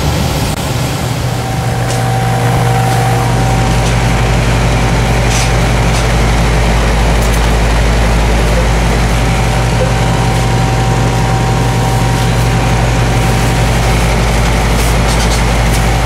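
Heat pump outdoor unit running in cooling mode: a steady low hum with condenser-fan air noise, louder from about two or three seconds in.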